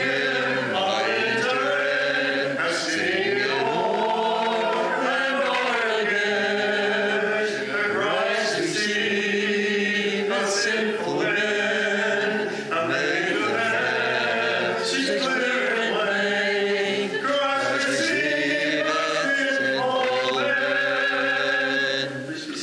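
Congregation singing a hymn a cappella in several voice parts, with no instruments. The singing stops just before the end.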